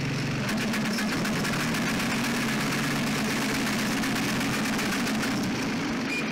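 Tractor engine running under load as it drives a Kadıoğlu Vibrope rope tree shaker shaking an almond tree. The engine note shifts about half a second in, and a fast rattle runs over it until near the end.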